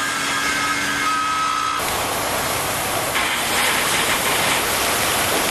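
Angle grinder grinding steel with a steady whine, cut off abruptly about two seconds in by the steady hiss of arc welding.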